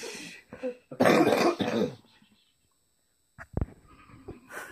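Hysterical laughter gone breathless: a fading breathy exhale, then about a second in a harsh, cough-like burst of breath lasting about a second. A near-silent gap follows, then a few faint knocks near the end.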